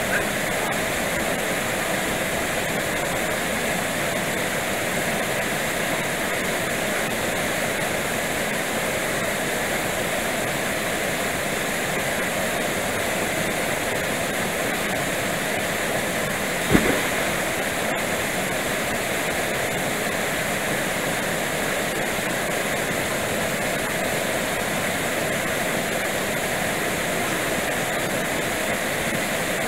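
A small waterfall pouring into a rocky plunge pool: a steady rush of falling water, with a single sharp knock a little past halfway.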